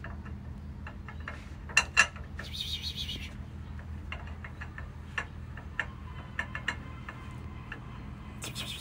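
Scattered light clicks and taps over a steady low hum, with two sharper clicks about two seconds in. A short, high rasping sound follows just before three seconds, and another comes near the end.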